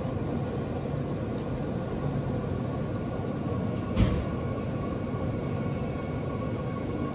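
Seoul Subway Line 2 electric train running, a steady rumble heard from inside the car with a faint steady hum. About four seconds in comes one short sharp knock.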